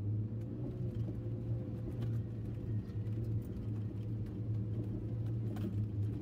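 Daihatsu Feroza 4x4's engine running at a steady pitch while the vehicle drives.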